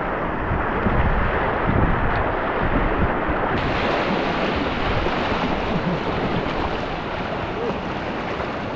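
Rushing whitewater around a kayak, with wind buffeting the microphone. About three and a half seconds in, the sound turns brighter and less muffled.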